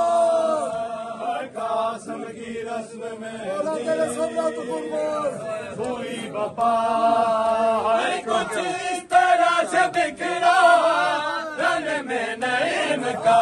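A crowd of men chanting a noha, a Muharram lament, in unison while doing matam, beating their chests with their palms. Sharp slaps of hands on bare chests cut in among the voices.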